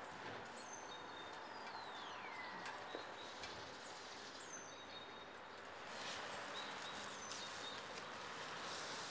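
Steady outdoor background noise with a few bird calls: short high chirps several times, and one longer whistle that falls in pitch about two seconds in.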